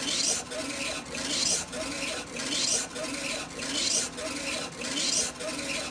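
Funsun DTF printer's print-head carriage shuttling back and forth across the film as it prints: a rasping whir with each pass and a brief dip at each turnaround, about every 0.6 s.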